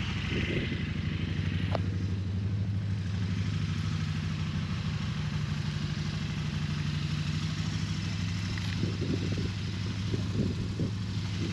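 Motorcycle engine idling steadily, a low even hum with a fast regular pulse and no revving.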